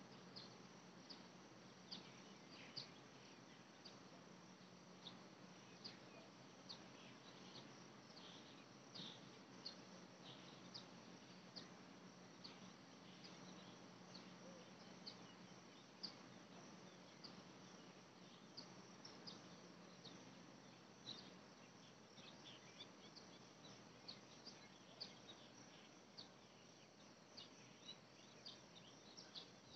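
Faint outdoor ambience: many short, high chirps at an irregular rate, several a second, over a soft hiss, with a steady low hum that fades out about two-thirds of the way through.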